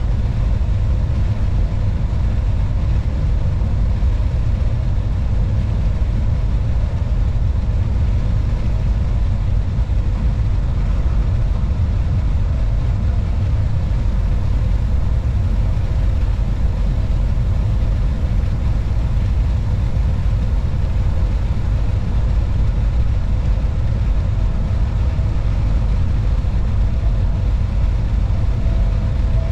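Steady low rumble of a Class 187 (Bombardier TRAXX) electric locomotive under way, heard inside its driver's cab, with a few faint steady tones above it.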